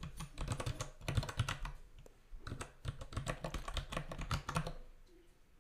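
Typing on a computer keyboard: two quick runs of keystrokes with a short pause between, stopping about a second before the end.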